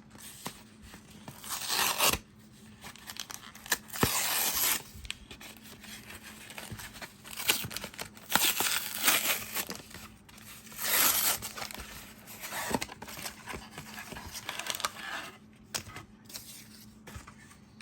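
Plastic-and-cardboard blister pack of trading cards being torn open by hand: several short bursts of tearing and crinkling packaging, with scattered clicks and rustles between them.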